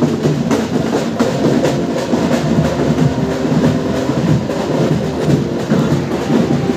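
Busy crowded festival street: many overlapping voices mixed with music and drum beats, loud throughout.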